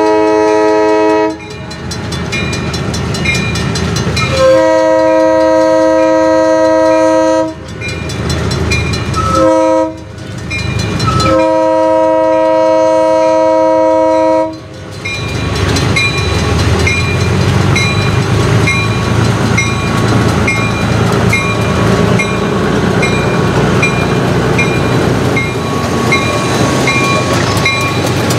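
Diesel locomotive horn, a chord of several tones, sounding the grade-crossing signal: the end of one long blast, then a long, a short and a long, over a crossing bell ringing steadily. After the last blast the locomotive's diesel engine rumbles past close by, followed by the passenger coach's wheels rolling over the rail joints.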